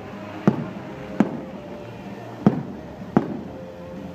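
Fireworks display: four sharp bangs of shells bursting, two in the first second and a half and two more just past halfway, each with a short echoing tail.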